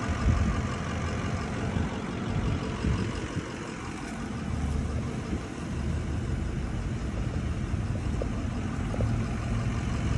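Steady low rumble of a vehicle engine idling.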